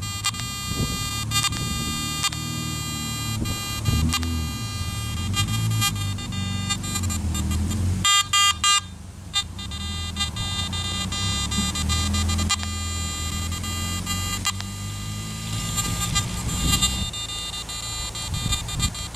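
Garrett AT Max metal detector's threshold tone in all-metal mode with sensitivity at maximum, a steady electronic hum that wavers and breaks up: a little instability at this threshold setting. A quick run of sharp beeps about eight seconds in, after which the tone briefly drops out.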